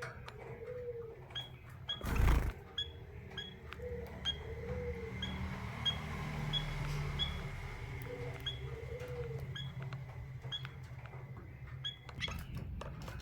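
Small cage birds, a female canary and a male white-headed munia, giving short high chirps over and over, roughly two or three a second. A loud thump comes about two seconds in.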